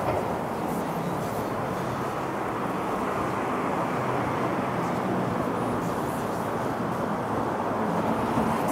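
Downtown street traffic: a steady wash of tyre and engine noise from cars passing on the road, with a low engine hum underneath.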